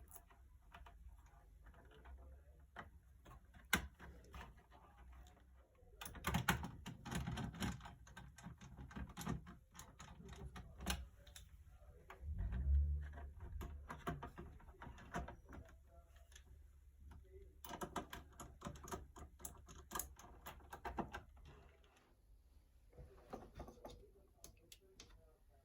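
Two spells of rapid light clicking and clatter, separated by scattered single clicks, with a dull thud about halfway through.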